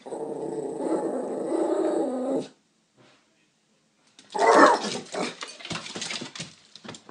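A dog growling steadily for about two and a half seconds. After a short silence comes a louder, rough outburst broken up by clattering.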